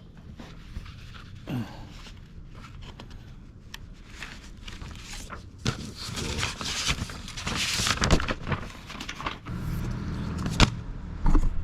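Paper rustling and shuffling as old service manuals and envelopes are handled, with the busiest rustling in the middle and a sharp knock near the end.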